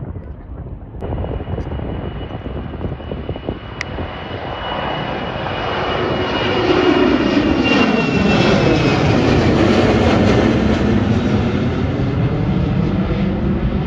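Twin-engine jet airliner climbing out after takeoff and passing overhead. The engine noise builds from about four seconds in and is loudest as the aircraft passes, with a high whine that slowly falls in pitch.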